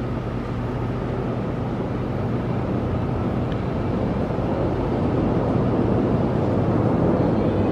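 Steady low machine hum under an even rushing background noise that slowly grows louder.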